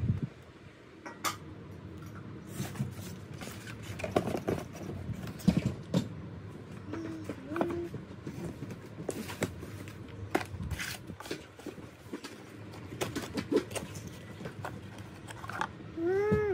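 Ceramic tableware being unpacked and handled: scattered clinks and knocks of plates and cups over the rustle of paper, plastic wrap and cardboard packaging.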